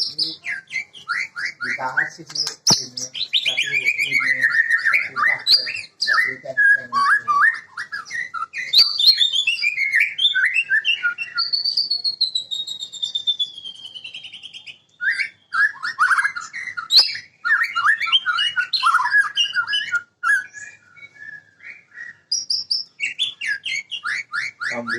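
White-rumped shama singing a long, varied song of rapid trills, rattling note series and sweeping whistled phrases, with a brief pause about halfway through.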